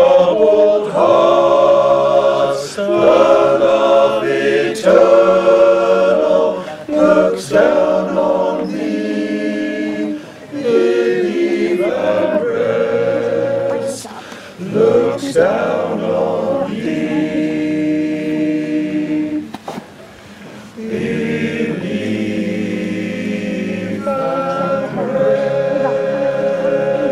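Unaccompanied male vocal group of about nine voices singing a slow Cornish fishing song in close harmony. Sustained chords come in phrases with short breaks between them, ending in a long held chord near the end.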